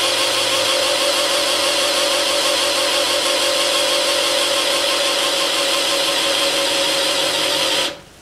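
Cordless drill spinning the oil pump priming tool of a rebuilt Chevy 350 small-block: a loud, steady whine that cuts off suddenly near the end. The pump is building oil pressure to almost 50 pounds.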